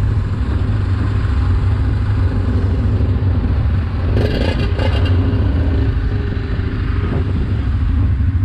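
ATV engines idling and running steadily. A short rattling clatter comes about four seconds in.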